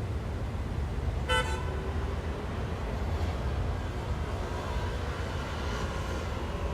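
Steady city traffic rumble, with one short car horn toot about a second in.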